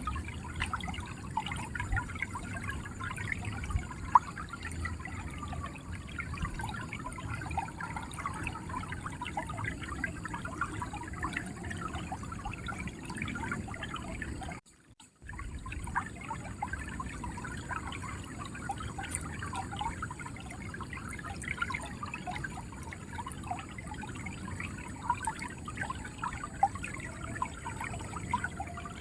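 Shallow river water flowing and gurgling: a steady rush dotted with many small splashes and trickles. The sound cuts out briefly, for about half a second, near the middle.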